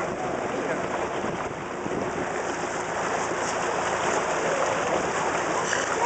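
Steady rushing noise of surf and sea water around the rocks, with a few faint calls from the seal colony mixed in.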